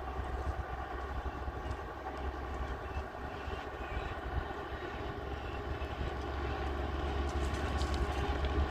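A motor vehicle's engine running steadily, heard as a continuous low rumble.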